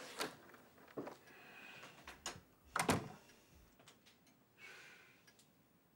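A few scattered knocks and thuds of handling in a small room, the loudest a double knock just under three seconds in, with a soft rustle between them.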